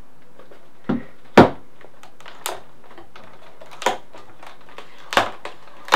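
About six sharp hard-plastic knocks and clicks, the loudest about a second and a half in. They come as the GoPro Karma controller is set down on the table and the drone's arms are folded in.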